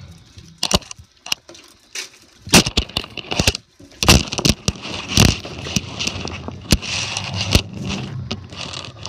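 Automatic car wash heard from inside the car: cloth brushes and hanging cloth strips slap and scrub against the body and glass, in irregular sharp slaps over a continuous wash of noise and a low rumble of machinery. The loudest slaps come two to three seconds in and again after about four and five seconds.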